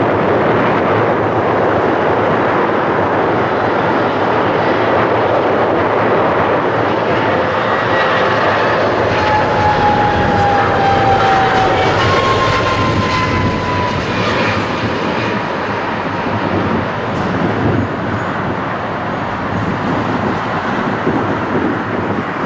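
Airbus A310 airliner passing low overhead on final approach: a loud jet engine rush with a whining tone that drops slightly in pitch as it goes past, about halfway through. Toward the end, a truck drives by close, mixed with the fading jet noise.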